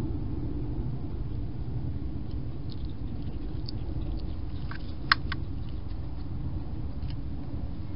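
Wild hedgehog moving and feeding at a food bowl right beside the microphone: scattered small clicks and rustles, with one sharp click about five seconds in and another just after, over a steady low rumble.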